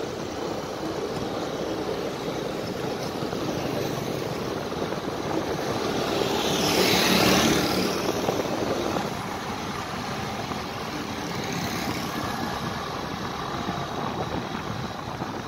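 Riding on a motorcycle: a steady rush of engine, road and wind noise. It swells louder for a couple of seconds about seven seconds in, then settles back.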